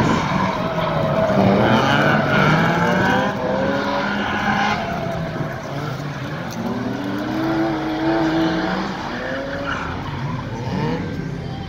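Car engine revving hard, its pitch repeatedly rising and falling as the car is thrown around, with tyres skidding on asphalt. It is loudest in the first few seconds.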